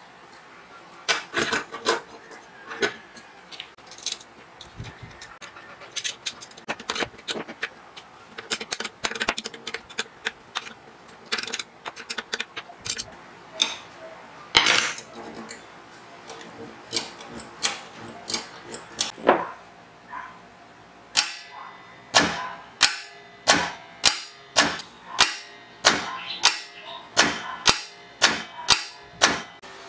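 Irregular metal clicks, clinks and knocks of hand assembly work on a steel hoist frame and its fittings, then, about two-thirds of the way in, a steady run of sharp metallic clicks about two a second.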